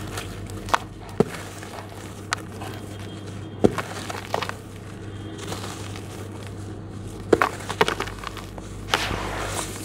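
Hands crushing and crumbling damp lumps of charcoal and sand with small white stones: a string of sharp crunches and cracks as the lumps break, then a longer gritty crumbling near the end as the broken pieces fall into the tub.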